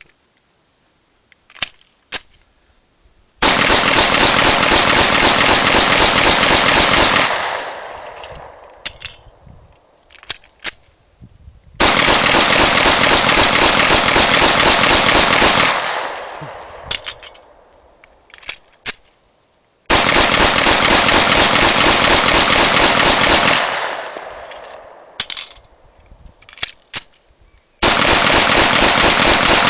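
Grand Power K100 pistol fired in rapid strings of shots as fast as the trigger allows, about four seconds per string. There are four strings, each dying away slowly afterwards, with scattered metallic clicks of handling in the gaps between them.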